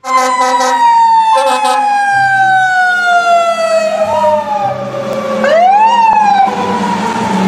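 Fire engine siren: a long wail falling slowly in pitch, with two short horn blasts at the start. Near the end, two quick rising-and-falling siren whoops come in.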